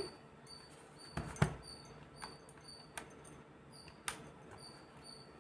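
Faint, scattered light clicks and taps of small metal jewellery connectors being handled, the loudest a little over a second in, with faint short high-pitched chirps repeating in the background.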